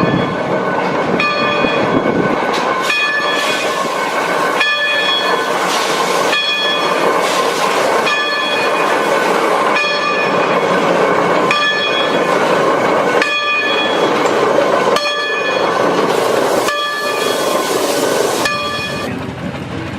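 Steam train running on the track, with a set of high ringing tones that cut out briefly every second or two.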